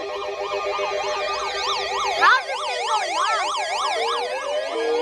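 Electronic siren tones sweeping rapidly up and down, about four sweeps a second, layered over a steady tone; slower rising glides come in near the end.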